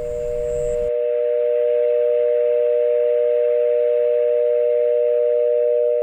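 Telephone dial tone: a steady tone of a few notes held together, the sign that no call is connected on the line. The background noise underneath cuts off about a second in, leaving the tone alone.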